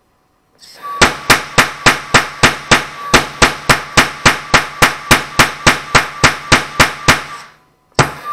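Small propane noise cannon with a spiral-wrapped barrel firing in rapid fire. A short hiss is followed by a string of sharp bangs, about four a second for some six seconds, over a low hum. The string fades out, and a new string of bangs starts near the end.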